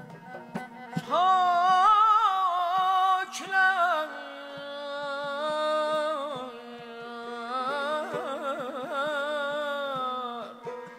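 Male mugham singer's wordless vocal passage: long held high notes broken by fast trilling ornaments, in several phrases, over a steady drone from the accompanying string instruments.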